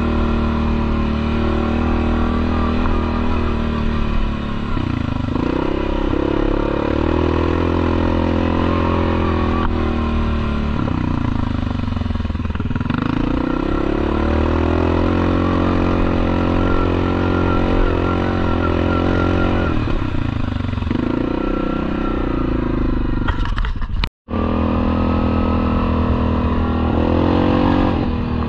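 Yamaha ATV engine running as the quad rides a dirt trail, its note falling and rising several times as the throttle is eased off and opened again. The sound cuts out for a split second near the end.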